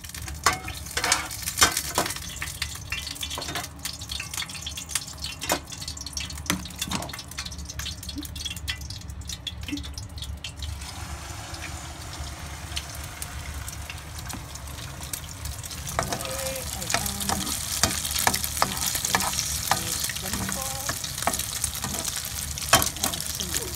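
Tuna and egg omelette sizzling as it fries in a pan, with scattered clicks and taps through the first half. The sizzling grows louder and hissier about 16 seconds in.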